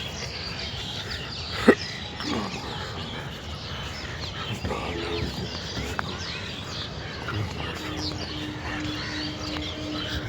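Many small birds chirping in quick, overlapping calls, with a single sharp click or knock about two seconds in. A faint steady hum comes in near the end.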